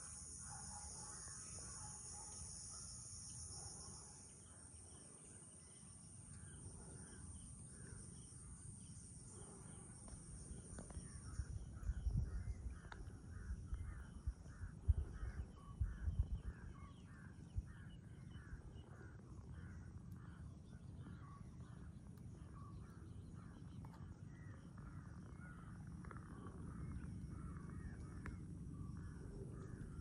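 Crows cawing over and over in a long run of short calls, with a steady high insect drone for the first few seconds. Low rumbling bumps on the microphone come around the middle.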